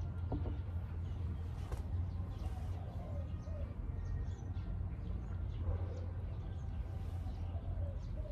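Outdoor ambience: several short, low, curving bird calls over a steady low rumble.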